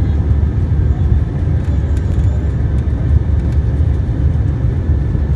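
Steady cabin noise inside an Airbus A320 airliner in flight: an even, deep rumble of the engines and the airflow past the fuselage.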